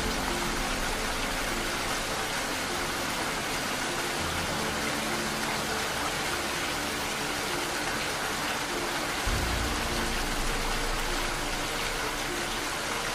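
Steady rain, an even hiss, with soft, slow music underneath: sustained notes, and low bass notes that change about four and nine seconds in.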